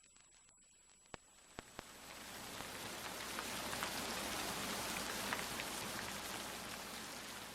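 Rain fading in about two seconds in and then falling steadily, with scattered drop crackles; before it, near silence broken by a few sharp clicks.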